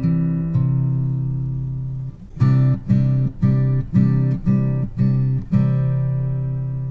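Background music on acoustic guitar: a held chord that slowly fades, then a run of short strums about two a second, then another long held chord.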